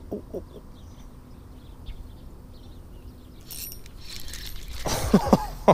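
Spinning reel cranking as a Ned rig is retrieved. About three and a half seconds in there is a rising rush of noise as the rod is swept up on a strike.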